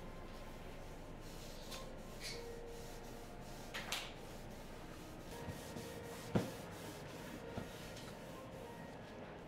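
A cloth rubbing over the top of a wooden box, with a few short swishes and light knocks and clicks; the sharpest knock comes a little past the middle.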